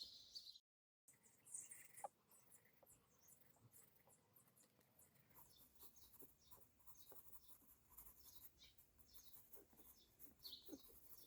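Faint scratching of colored pencil strokes on sketchbook paper, with birds chirping lightly in the background.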